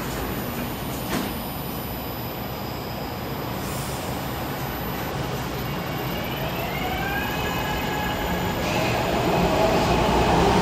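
SEPTA Market–Frankford Line M-4 train departing: a steady hum while it stands, and a single knock about a second in as the doors close. About six seconds in, the traction motors start a rising whine of several pitches climbing together as the train accelerates away, growing louder toward the end.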